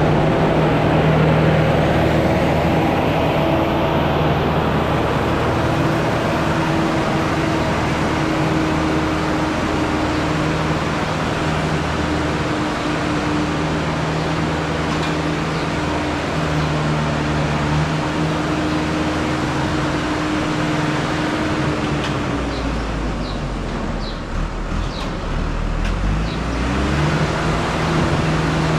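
Steyr 9094 tractor's 94 hp engine running steadily under heavy load, working hard to drive a feed mixer wagon filled with nearly 7 tons of mostly grass. A little past twenty seconds in, the engine note sinks and a low rumble swells, then the note rises back up near the end.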